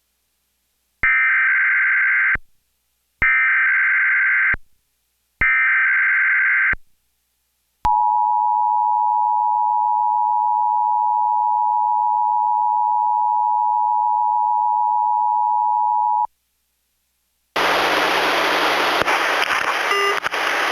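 Emergency Alert System test signal. It starts with three short bursts of warbling SAME header data tones, then the steady two-tone attention signal sounds for about eight seconds and cuts off. Near the end a hissy relayed audio feed begins, carrying the test message.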